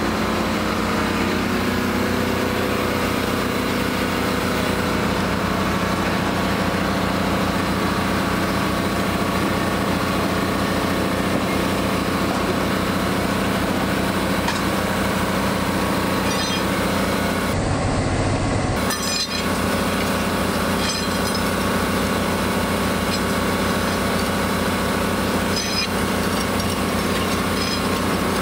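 An engine running steadily at idle, with a fast even pulse throughout. A few faint clicks come through in the second half.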